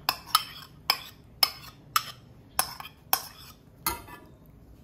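Metal spoon clinking and scraping against a ceramic bowl as diced carrot is knocked out of it: about eight sharp clinks, roughly two a second.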